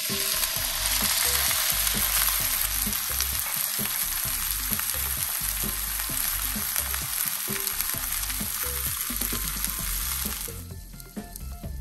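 Water poured into a hot oiled skillet of browned vegetables, sizzling loudly as it boils off into steam to steam the vegetables. The sizzle cuts off suddenly near the end.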